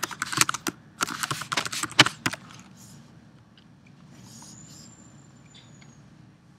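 A quick run of computer mouse and keyboard clicks for about two seconds, then quiet room tone.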